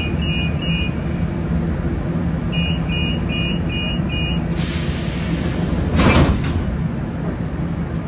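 Lisbon Metro train's door-closing warning: short two-tone beeps, three, a pause, then five more, over the steady hum of the stopped train. A sudden hiss of air follows about four and a half seconds in, then a louder whoosh as the doors close about six seconds in.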